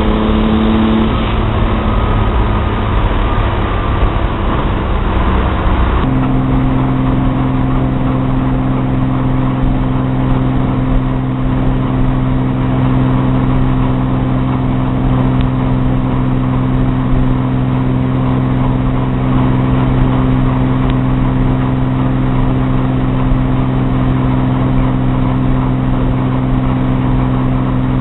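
Engine with advanced camshaft timing running: its speed drops in the first second or so, and from about six seconds in it holds a steady speed with an even, unchanging tone.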